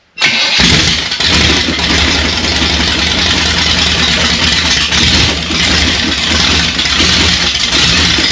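A small-block Chevy V8, freshly freed from being seized, catches a fraction of a second in and runs loud and unsilenced through open headers with no mufflers. It is running on gasoline poured into the carburettor bowls, with no fuel system connected.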